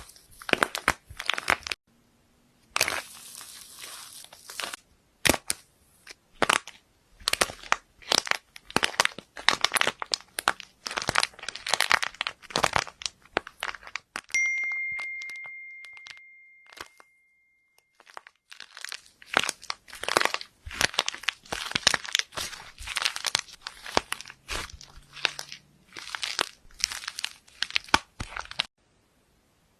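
Slime being squeezed and poked by hand, making quick runs of crackling, crinkling pops with short pauses between handfuls. About halfway through, a single clear ringing tone sounds and fades away over a few seconds.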